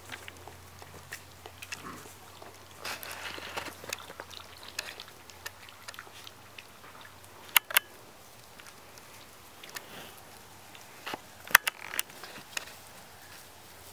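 Five-week-old standard poodle puppies playing and lapping water from a plastic bowl: scattered small mouth and snuffling noises, with a few sharp clicks about halfway through and again near the end.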